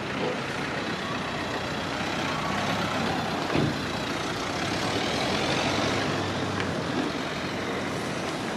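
Motor-driven French civil alert siren, a multi-horn rooftop unit, heard faintly as a thin gliding tone under a steady rush of noise.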